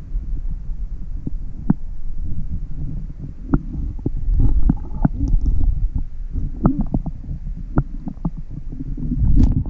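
Muffled low rumble of water heard through an underwater camera housing, with many short, irregular clicks and taps scattered through it.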